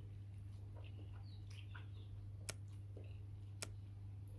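Faint eating sounds from a bowl of noodle soup: two sharp clicks of utensils against the bowl, about two and a half and three and a half seconds in, with small soft mouth noises between, over a steady low hum.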